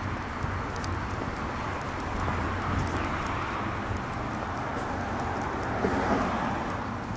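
Town street traffic running steadily, swelling as cars pass on the road, with light footsteps on the pavement ticking about once a second.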